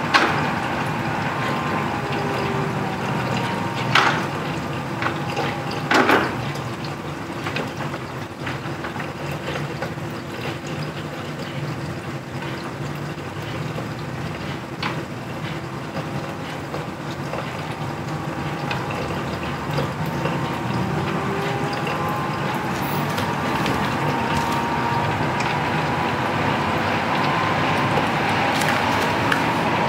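Honeywell ES800 evaporative air cooler running: a steady fan hum with water from its pump trickling over the cooling pad. Two short knocks about four and six seconds in.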